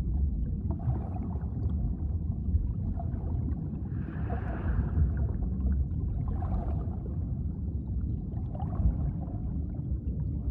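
Underwater ambience: a steady low rumble of water noise, with brief swells of higher hiss about four seconds in and again near six and a half and nine seconds.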